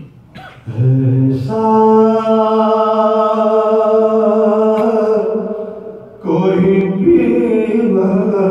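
A man's solo voice chanting an Urdu mourning poem in a melodic recitation. He holds one long steady note for about four seconds, lets it fade, then starts a new phrase.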